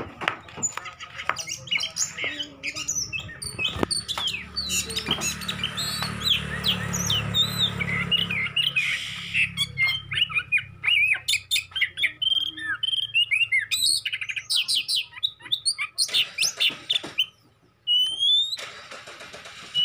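Oriental magpie-robins calling and singing: a busy run of quick chirps, whistled notes and sliding phrases, with a low hum underneath for about the first half.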